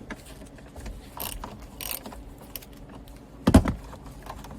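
Hand ratchet clicking as a T30 Torx bolt is loosened inside a steering wheel, with a couple of short scraping rustles and one heavy thump about three and a half seconds in, the loudest sound.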